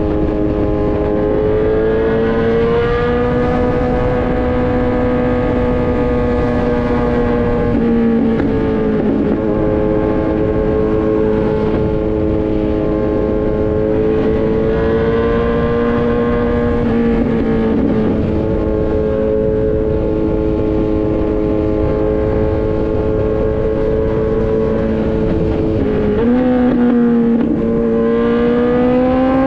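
Kawasaki Z900's inline-four engine through an Austin Racing full exhaust, cruising at fairly steady revs with gentle rises and dips, over a steady rush of wind noise. Near the end the revs start to climb as the bike accelerates.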